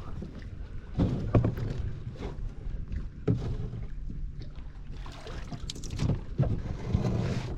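Kayak in the water being moved about: irregular knocks against the hull and splashing. A steady low rumble lies under them.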